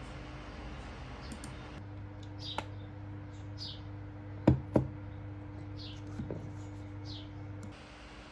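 Quiet room ambience with a steady hum, faint short bird chirps now and then, and two sharp clicks close together about halfway through.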